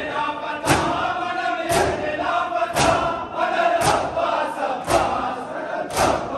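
Matam: a crowd of mourners beating their chests with their hands in unison, one loud slap about every second, with many voices chanting between the strikes.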